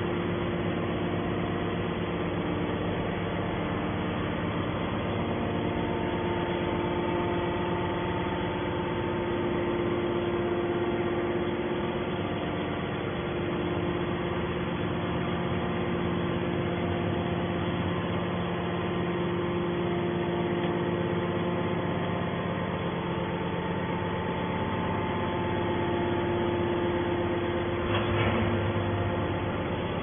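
Hydraulic scrap-metal baler's power unit running with a steady hum and several held tones. A short knock about two seconds before the end.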